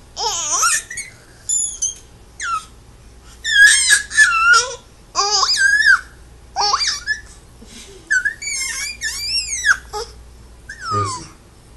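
Baby squealing and babbling: a run of short, very high-pitched cries that swoop up and down in pitch, one after another with brief pauses.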